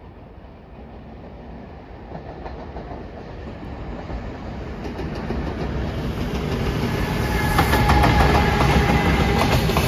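JR Freight EF210 electric locomotive hauling a container freight train, approaching and passing close by, its rumble growing steadily louder. From about seven seconds in, the wheels click over rail joints as the locomotive and the first wagons go past.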